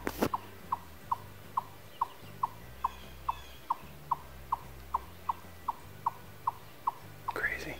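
A small wild animal calling in the woods: one short, sharp note, the same pitch each time, repeated evenly about two and a half times a second. A brief knock sounds right at the start.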